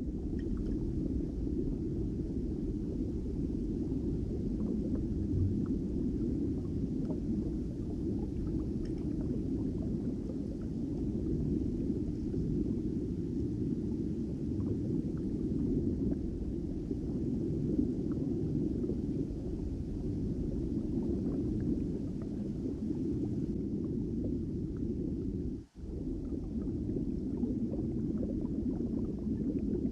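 Underwater sound picked up by a GoPro submerged in a pond: a steady low rumble with faint scattered ticks and clicks. It cuts out briefly about four seconds before the end.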